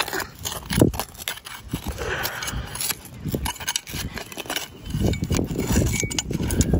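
Digging into dirt with a shovel: a run of scraping, crunching strokes and clicks through the soil, with heavier low thumps in the last couple of seconds.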